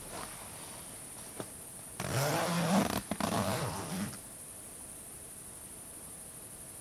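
A zipper pulled in one long rasping stroke lasting about two seconds, after a few faint knocks and rustles.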